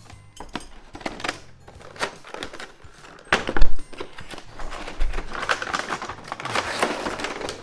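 Cardboard-and-plastic toy box being opened and handled: scattered clicks and rustling, one loud thump about three and a half seconds in, then denser rustling and crinkling of the packaging.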